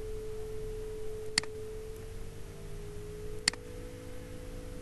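A steady hum at one pitch that wavers and splits into two close pitches about halfway through, with two sharp computer mouse clicks, one about a second and a half in and one near the end.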